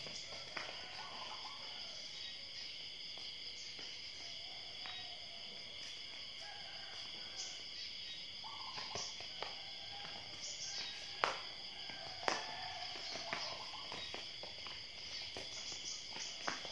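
A steady, high insect chorus drones throughout. Scattered sharp knocks come from a small ball being kicked and bouncing on the paving, the two loudest about eleven and twelve seconds in.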